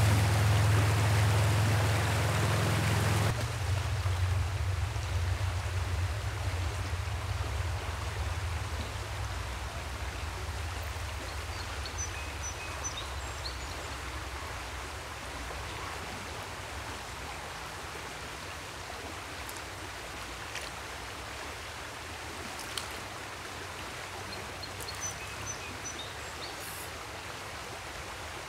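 Small rocky stream rushing over a shallow riffle, a steady wash of water that is loudest at the start, drops abruptly about three seconds in to a softer flow, and then slowly fades.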